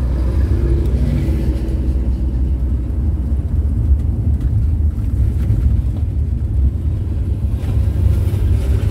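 Steady low rumble of a Volkswagen Kombi driving on the road: engine and road noise.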